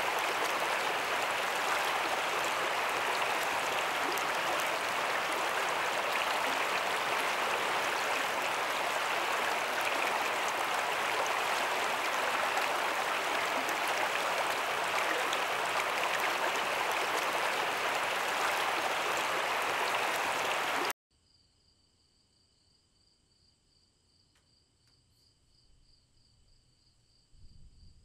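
Steady rush of a fast-flowing river over rocks, which cuts off suddenly about three-quarters of the way through. Then comes near silence with faint, high, steady insect trilling, one note pulsing.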